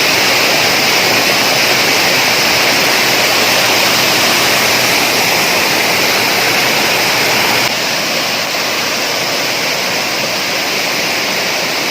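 Waterfall: a steady, loud rush of falling water that drops a little in level near the end.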